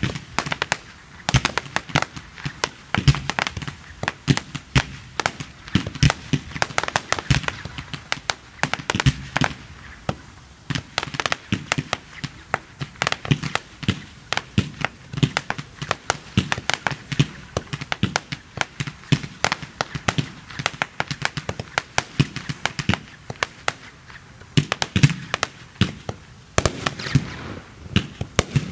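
Firework batteries firing in rapid succession: a dense, continuous run of launches and bangs, several a second.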